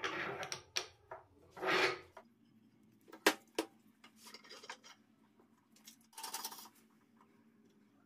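Handling noises as a hardwood end block is glued and pressed onto a wooden beam over a threaded rod: a few short scraping and rubbing sounds, with a sharp click about three seconds in.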